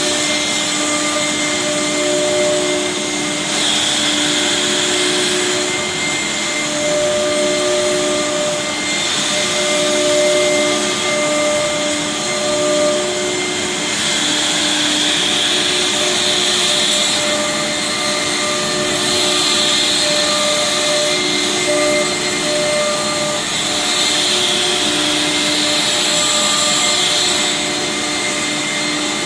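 Four-spindle CNC router's air-cooled spindle cutting a wood panel: a steady, loud machine whine of several tones, with a hissing cutting and dust-extraction noise that swells and fades every few seconds.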